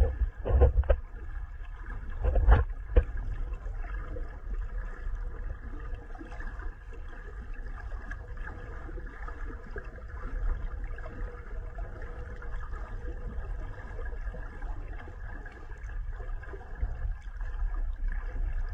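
Underwater water noise: a steady low rumble with a light watery hiss, and a few dull thumps near the start.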